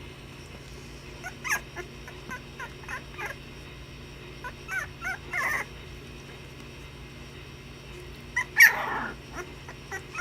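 Basenji puppies playing, giving short high yips and whimpers in scattered bursts, with one louder yelp about eight seconds in.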